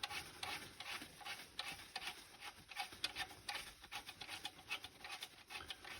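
Faint, irregular small clicks, taps and rustles of hands working on the oil burner assembly and handling tissue.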